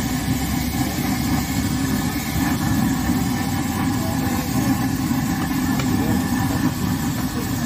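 Potato pakoras deep-frying in a large wok of hot oil, the oil bubbling and sizzling steadily over a constant low rumble.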